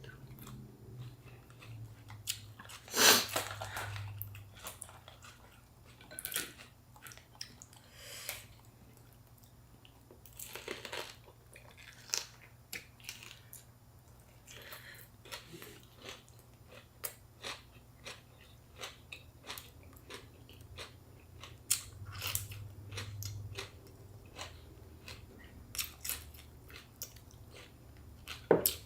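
Close-up chewing and biting of fresh spring rolls (rice paper wrapped around raw vegetables such as lettuce, cucumber and bean sprouts, with boiled shrimp), with irregular crunches.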